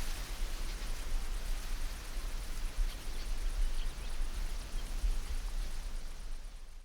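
Steady rushing noise with no distinct events, fading out near the end.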